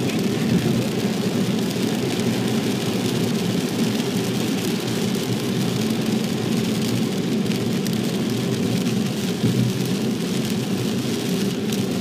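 Steady noise inside a car driving on a rain-soaked expressway in heavy typhoon rain: tyres hissing on the wet road and rain on the windscreen and roof, with a low road rumble underneath.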